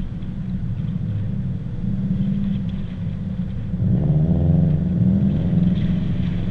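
Wind buffeting the microphone over car engines on the road; about four seconds in, an engine note rises and then falls back.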